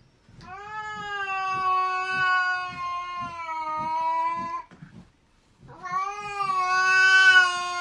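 A cat yowling: two long, drawn-out meows at a steady pitch. The first lasts about four seconds, and the second starts about a second after it ends.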